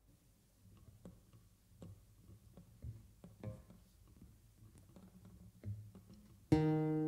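Faint scattered taps and knocks, then near the end an acoustic guitar strums a chord that rings on, opening the song.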